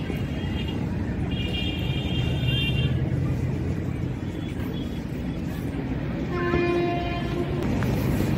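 Steady rumble of passing road traffic with vehicle horns sounding: a high-pitched horn of several tones held for under two seconds about a second in, and a lower horn held for about a second near the end.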